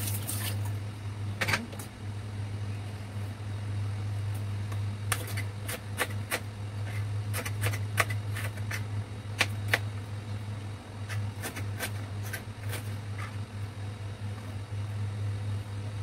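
Kitchen knife cutting garlic cloves on a plastic cutting board: a run of sharp, irregular taps, most of them between about five and thirteen seconds in. Under them is a steady low hum, and tap water runs briefly at the very start.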